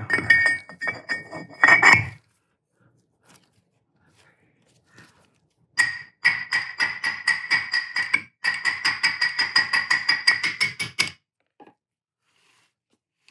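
Steel scroll of a lathe chuck being seated in the chuck body: a few ringing metal clanks at first, then, from about six seconds in, a fast run of light taps from a brass rod, about six a second for some five seconds with a short break midway, each making the steel body ring.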